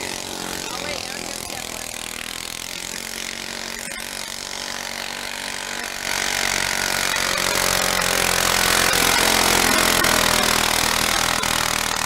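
Garden tractor's engine running hard under load as it drags a weight-transfer pulling sled, the sound jumping louder about halfway through.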